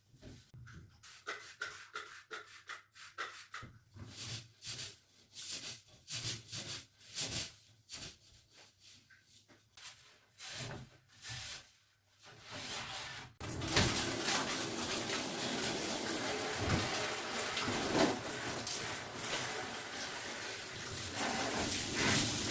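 Light handling clicks and rubbing, then, a little past halfway, a tap or shower starting up and water running in a steady rush.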